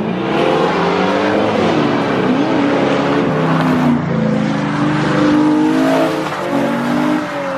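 Nissan 350Z's V6 engine revving hard while the car is driven and drifted, the pitch rising and falling, over a steady rush of tyre and road noise.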